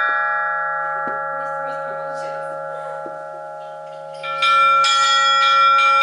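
A set of church bells of different sizes, rung by hand from ropes. The notes from the last strikes hang on and slowly die away, then a new round of several strikes comes about four seconds in and rings on, many notes at once.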